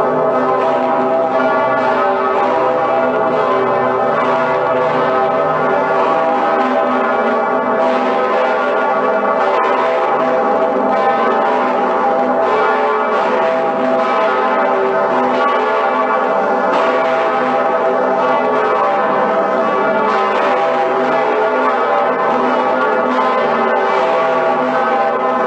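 Cologne Cathedral's St. Peter's Bell (Decke Pierre) and Pretiosa swinging together. Their strokes overlap into a continuous, dense ringing hum, with a fresh clapper strike every few seconds.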